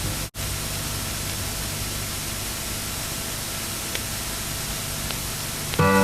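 Steady hiss, with a brief dropout just after the start. Music starts just before the end.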